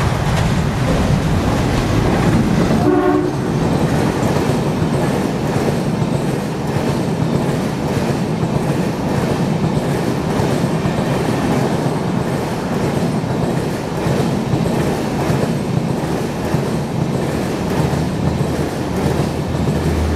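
WDP3A diesel-electric locomotive passing at speed, its engine running low and loud, with a short horn blast about three seconds in. Then the train's LHB coaches rush past with a steady rolling noise and wheels clattering over the rail joints.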